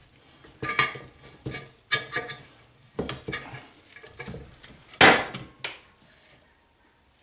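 Metal tools clinking, scraping and clanking against the valve spring and keeper of a Briggs & Stratton small engine, in an uneven run of sharp knocks with the loudest clank about five seconds in.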